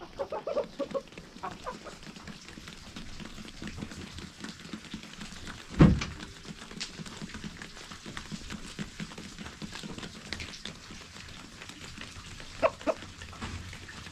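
Chickens clucking: a run of short calls at the start and a couple more near the end, with one sharp knock about six seconds in.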